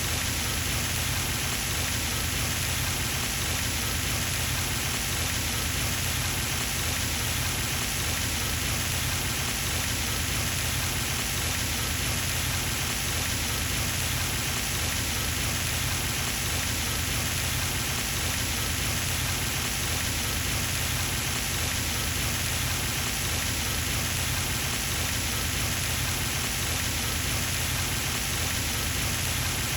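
Pond fountain spray splashing steadily onto the water surface, an even unbroken rush of falling water.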